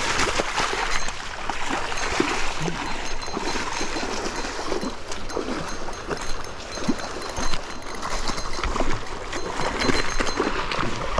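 Shallow river water rushing and splashing: a steady noisy wash with many small splashes.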